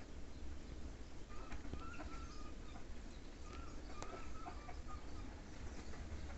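Birds calling in the background: short, wavering notes repeated every second or so, over a steady low rumble.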